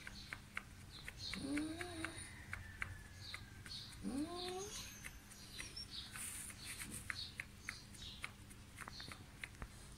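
A German shepherd gives two short whines that rise in pitch, one about a second and a half in and another about four seconds in, with small birds chirping throughout.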